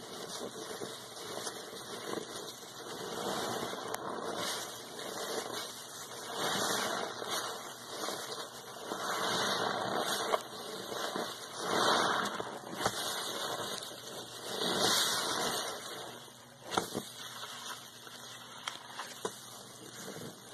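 Suds-soaked sponge squeezed and kneaded by rubber-gloved hands in a basin of foamy water: wet squelching and sloshing with crackling foam, in swells every two to three seconds, quieter near the end.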